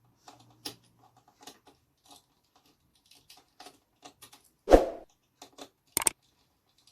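Small screwdriver working a spring-loaded hard-drive screw out of a laptop: faint, scattered clicks and ticks, a louder knock just under five seconds in, and a sharp click about a second later.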